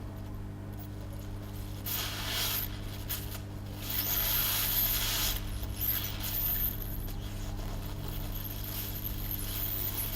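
A steady low electrical hum from the workbench equipment, with several short bursts of scratchy rubbing and scraping as small hand tools work on a phone's logic board.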